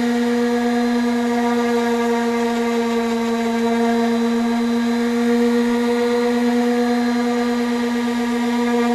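Handheld power tool running at a steady high speed, a constant whine that holds one pitch throughout.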